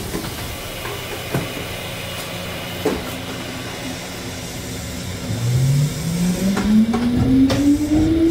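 Mizuma Railway 1000 series electric train pulling away from a station: a low steady hum with a few clicks, then about five seconds in the VVVF inverter and traction motor whine starts low and climbs steadily in pitch as the train accelerates.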